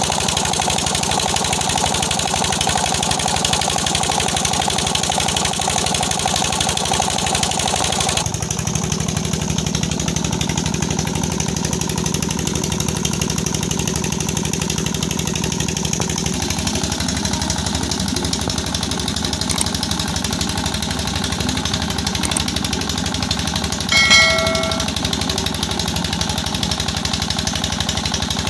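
Diesel 'Peter' engine running steadily with a rapid, even knock, freshly started after repair. The tone shifts abruptly about a third of the way in, and near the end a single short metallic ding rings out over it.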